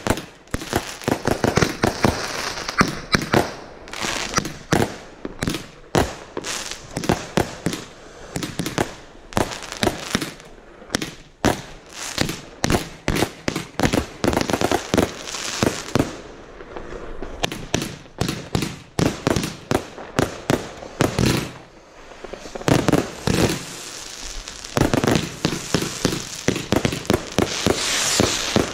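Primed Pyrotechnics consumer barrage cakes firing close by in quick succession: a continuous string of launch thumps and cracking bursts, about two or three a second, with crackle and hiss between shots.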